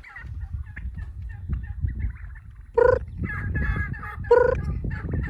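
Fowl calling near the microphone: two loud, short pitched calls about three and four and a half seconds in, among quieter chirps, over a steady low rumble.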